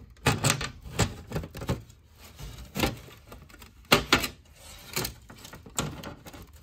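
White plastic printer cover parts knocking and clicking against each other as they are handled and fitted together, in irregular sharp clicks with the loudest about four seconds in.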